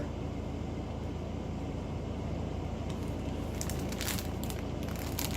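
Small plastic bags of diamond-painting drills being handled, crinkling and rustling in short bursts of crackles in the second half, over a steady low hum.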